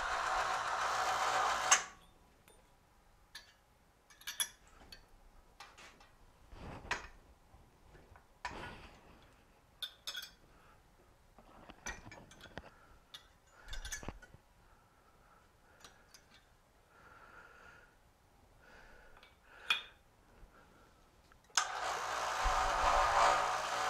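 Electric hoist motor running steadily for about two seconds and stopping. A string of light metal clicks and knocks follows as the scale hook is fitted to the jack. Near the end the hoist motor starts again to lift the jack.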